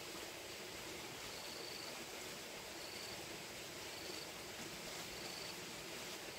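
Insect chirping: short high chirps about once a second over a steady background hiss.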